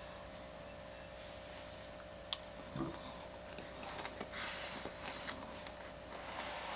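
Faint eating sounds at a table: a single chopstick click about two seconds in and soft chewing later on, over a steady low hum.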